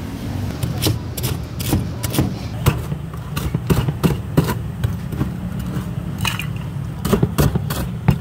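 Cleaver chopping crispy fried fritters for Indian rojak on a plastic cutting board: a run of sharp crunching chops, irregular, about two a second.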